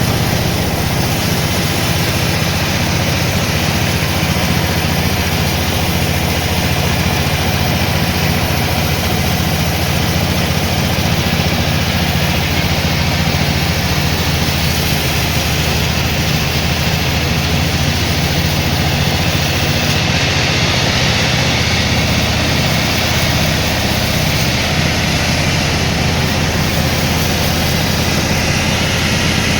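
Sawmill machinery running with a steady, unbroken low hum.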